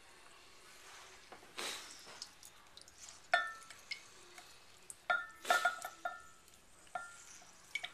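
Hand-held lemon press squeezing a lemon half over a glass measuring cup: the press clinks and knocks against the glass rim, each clink ringing briefly, loudest once about three seconds in and in a cluster about five seconds in, with softer squeezing noise between.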